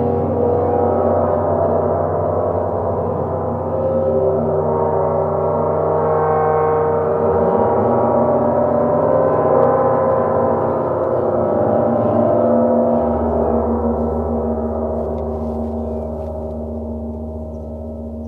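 Large hanging gongs, among them a Bifrost titanium gong, ringing in a dense, sustained wash of shimmering overtones that swells and slowly fades toward the end. About two-thirds of the way through, the deepest hum drops lower.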